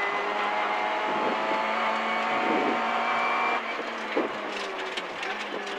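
Peugeot 206 RC rally car's 2.0-litre four-cylinder engine at steady high revs, rising slightly, heard inside the cabin with road noise. About three and a half seconds in, the engine note drops away as the throttle is lifted, leaving quieter running with a few short knocks.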